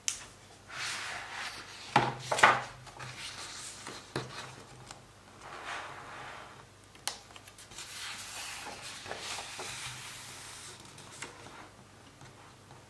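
Hardcover picture book being handled and its pages turned: rustling, swishing paper and the stiff board cover and pages knocking, with a sharp pair of knocks about two seconds in and a longer swish of a page turn in the second half.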